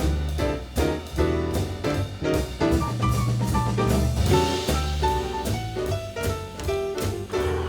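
Background music: an upbeat jazz tune with drum kit, bass and melodic notes on a steady beat.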